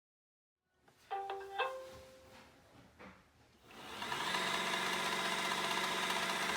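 iRobot Roomba i7+ robot vacuum plays its short start-up tones, a few pitched notes, then about three and a half seconds in its motors and brushes spin up into a steady whining run of many tones over a low hum. The video is about this robot's side brush, which the owner reports squeaks and rattles.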